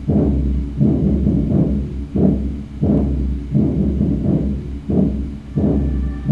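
Documentary trailer soundtrack playing through a TV speaker: music with slow, steady low drumbeats, about three every two seconds.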